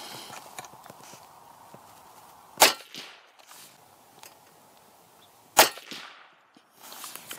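Two suppressed shots from a Savage Axis bolt-action rifle in 300 Blackout, firing Hornady Black 208 grain A-MAX subsonic loads, about three seconds apart. Each is a short, sharp report with no supersonic crack.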